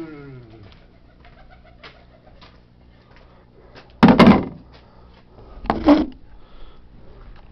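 Domestic pigeons cooing close by, with two loud coos about four and six seconds in.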